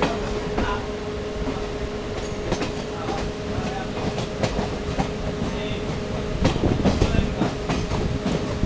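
Moving train heard from inside the carriage: a steady rumble of wheels on rails with irregular clicks from the rail joints, and a steady hum that fades out about six seconds in.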